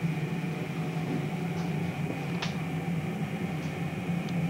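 Steady low hum with a faint high-pitched whine over it, and a single click about two and a half seconds in.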